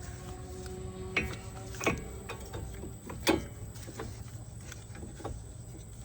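A few sharp metallic clinks and knocks of metal parts and tools being handled, with a faint ringing after some of them, over a steady low hum.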